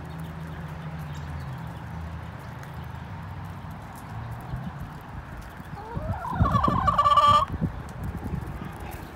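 Flock of hens pecking at scattered feed, with a low steady murmur. About six seconds in, one hen gives a loud call lasting over a second, rising in pitch and then held.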